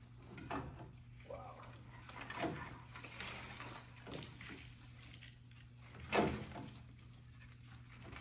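Scattered metal clunks and knocks as a battery tray and its hardware are handled and fitted to a truck frame, the loudest about six seconds in, over a steady low hum.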